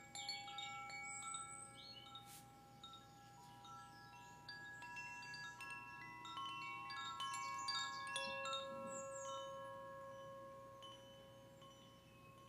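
Wind chimes ringing: clear metallic tones of several pitches struck at irregular moments, each note sustaining for seconds and overlapping the others.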